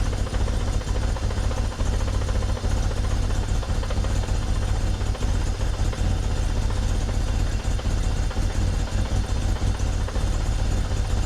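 BMW M43B16 1.6-litre four-cylinder engine idling steadily, without the rattle its failed water pump made, now with a new pump and belt. A steady hiss runs under it, which the owner takes for a vacuum leak.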